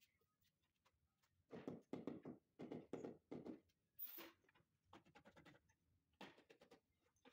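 Faint, short scraping strokes of hands rubbing and pressing sheets of mosaic tile into tile adhesive, several in a quick run, then a brief hiss and a few weaker strokes.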